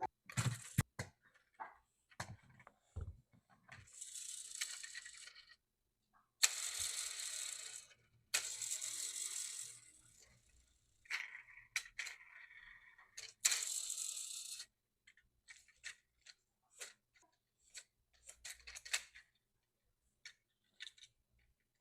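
Handling of small diecast metal toy trucks: scattered clicks, taps and light rattles of metal and plastic parts. Several longer hissing stretches of a second or two come in between.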